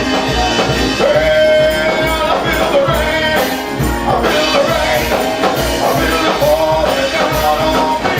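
Live gospel praise music from a church band with a steady drum beat, and voices holding long sung notes.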